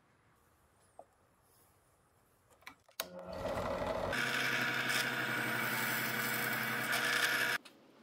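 Benchtop drill press starting up about three seconds in and running steadily with a hum and a high hiss as the bit drills through 1/8 inch copper busbar, then stopping abruptly near the end.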